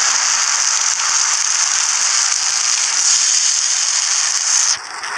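Ham, cheese and egg patties sizzling on a hot flat-top griddle: a steady hissing crackle, broken by a brief drop near the end.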